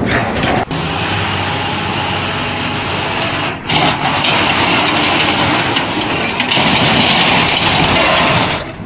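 Loud, steady mechanical noise of a heavy vehicle or machine running, with abrupt changes in the noise about two-thirds of a second, three and a half seconds and six and a half seconds in.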